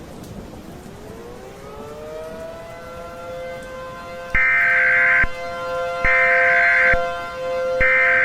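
An outdoor civil-defense warning siren winds up from a low pitch into a steady wail. About halfway through, three loud, buzzy digital data bursts of about a second each sound over it: the SAME header tones that open an Emergency Alert System warning.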